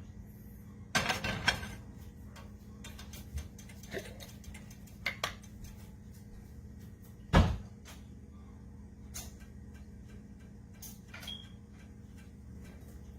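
Kitchen handling sounds: a frying pan and utensils knocked and clattered, with a short clatter about a second in, a few light clicks, and one loud thump about seven seconds in, over a low steady hum.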